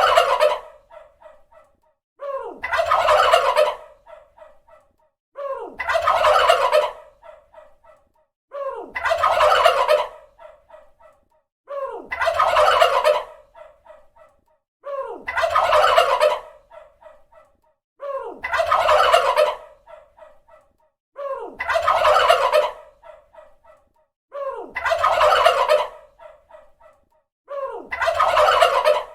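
Turkey gobbling: the same gobble repeats about every three seconds, nine times. Each one opens with a short falling note, swells into a loud rattling gobble and trails off in quick fading pulses.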